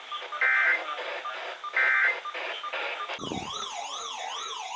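NOAA weather radio sending two short, harsh digital data bursts, the SAME end-of-message code that closes an alert. About three seconds in a click is followed by a weather alert receiver's warbling siren alarm, rising and falling about twice a second.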